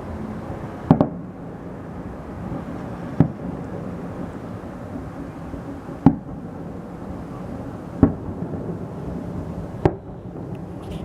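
Firework shells bursting in the sky: five sharp booms about two seconds apart, over a steady background hubbub.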